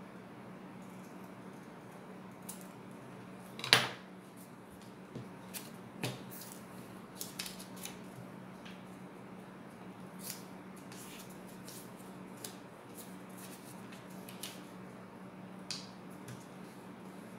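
Small scissors snipping paper, then paper being folded and creased by hand on a wooden table: scattered soft snips, crinkles and clicks, with one sharp click about four seconds in. A low steady hum runs underneath.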